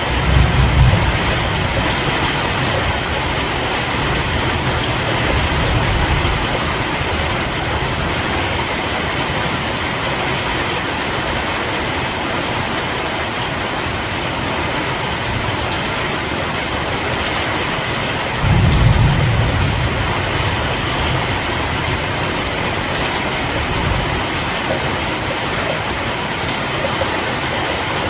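Steady heavy rain falling at night, an even hiss. Low rumbles swell under it a few times, the strongest about two-thirds of the way through.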